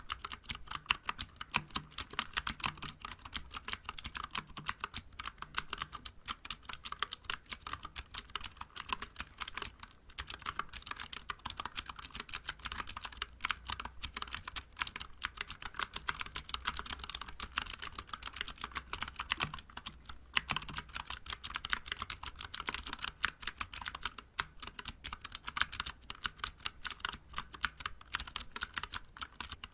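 Fast, continuous typing on a Vortex Vibe mechanical keyboard with clicky Cherry MX Blue switches and SA-profile keycaps. Each keystroke gives a sharp click, broken by a few brief pauses.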